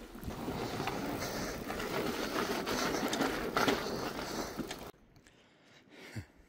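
Fat-tyre electric mountain bike rolling over a rough stone and grass track, its tyres rumbling with frequent knocks and rattles over the bumps. The riding noise cuts off about five seconds in, leaving quiet outdoor background with a single small click.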